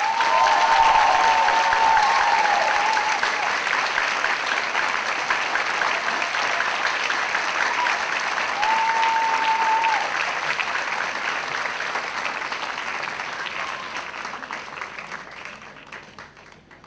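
Theatre audience applauding at the end of a belly dance performance, loud at first and fading away over the last few seconds. Two long, high calls ring out above the clapping, one at the start and one about nine seconds in.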